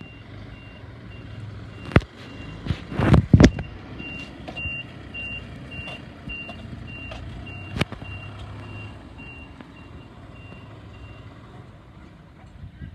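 A vehicle's reversing alarm beeping at a steady high pitch, about two beeps a second, over a low engine hum, fading out near the end. Several loud knocks or bangs stand out about two to three and a half seconds in and again near eight seconds.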